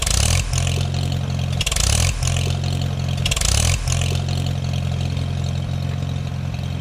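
Tractor engine running under load, with strong low tones that swoop and dip about every one and a half to two seconds. Bursts of hiss come with the first few surges, and it settles steady near the end.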